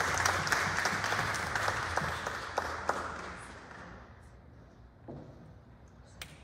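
Congregation applauding in a large stone church, the clapping thinning and dying away by about four seconds in. A single sharp knock near the end.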